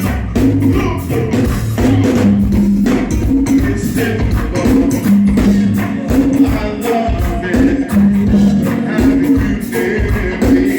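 Go-go band playing live: a driving percussion groove over a bass line that repeats about every two seconds.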